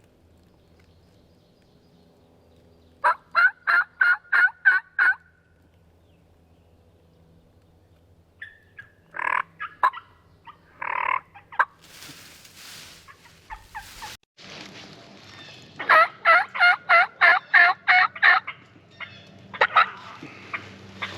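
Wild turkey calls: a run of about eight evenly spaced yelps, two single calls a few seconds later, then another longer run of yelps near the end.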